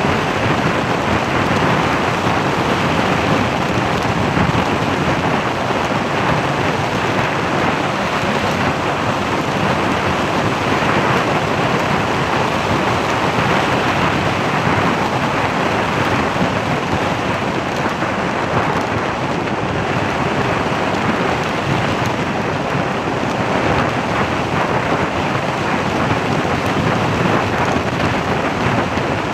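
Steady rushing noise of wind and road from a vehicle on the move, with no changes or distinct events.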